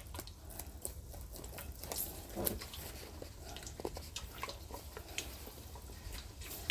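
Food frying in a pan of hot oil, with faint, scattered crackles and pops.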